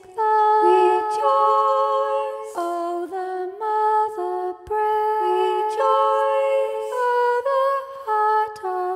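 A single voice singing a slow unaccompanied melody, holding each note and stepping between pitches with short breaks between phrases.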